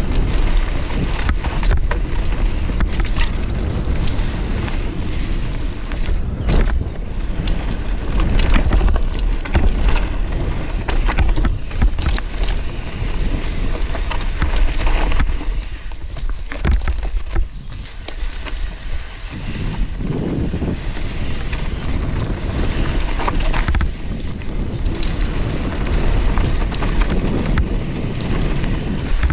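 Mountain bike descending a dirt trail: wind rushing over the action-camera microphone, with tyre rumble and frequent sharp knocks and rattles from the bike over rough ground.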